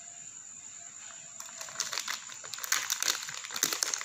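Plastic packet of grated parmesan cheese crinkling and rustling as it is handled, with crisp crackles starting about a second and a half in.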